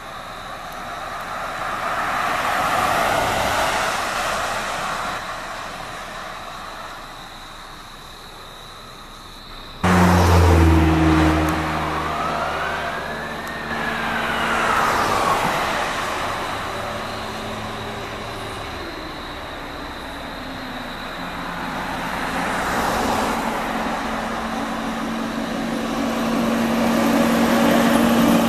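Fire apparatus passing on the road with engine and tyre noise that swells and fades. About ten seconds in, a loud low drone starts abruptly and a siren winds up and down once. Near the end a heavy engine builds again as the next truck pulls past.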